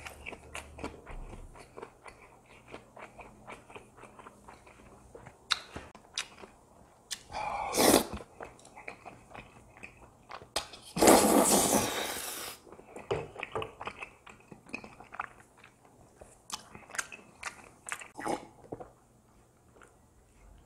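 Close-miked eating sounds: wet chewing and lip smacks on rosé tteokbokki, with two loud slurps, a short one about eight seconds in and a longer one about eleven seconds in.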